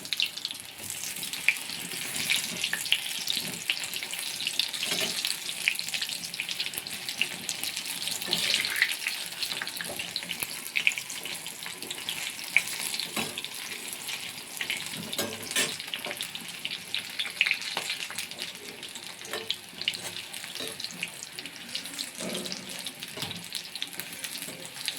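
Pakoras deep-frying in hot oil: a steady crackling sizzle, with a few sharp clicks now and then.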